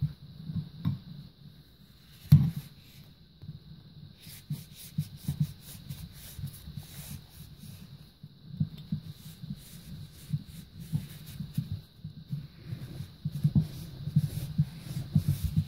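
A terry towel scrubbing cornstarch and grease out of the metal clutch drum of a Whirlpool direct-drive washer transmission: irregular rubbing and scraping of cloth on metal, with dull handling thuds. A single sharp knock about two seconds in is the loudest sound.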